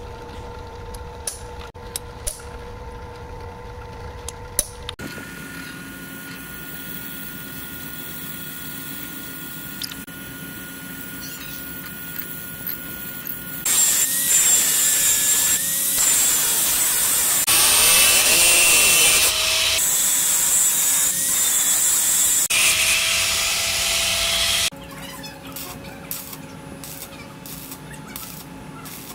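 Handheld angle grinder with a cutting disc running and cutting metal for about eleven seconds, its pitch shifting as the disc loads up, then cutting off abruptly. Before it, a few sharp metal taps.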